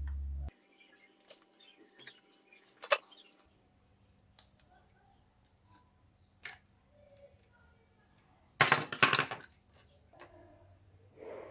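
Hands handling a small DC motor and its fibreglass blade on a workbench: scattered clicks and taps, with a loud clatter of parts being put down about nine seconds in. A low hum stops abruptly about half a second in.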